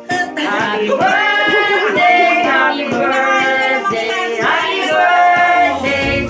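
A song: several singing voices over instrumental accompaniment, with some long held notes.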